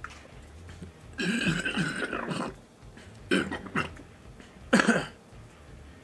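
A man burps loudly for over a second just after drinking, then makes two short throaty sounds like coughs or throat-clearing.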